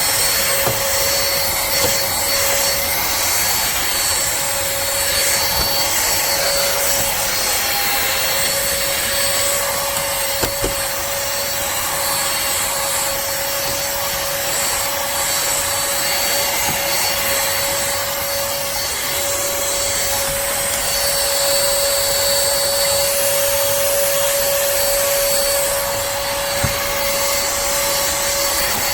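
pemacom DW688 cordless handheld vacuum running steadily and loud: a motor whine held at one pitch over the rush of air.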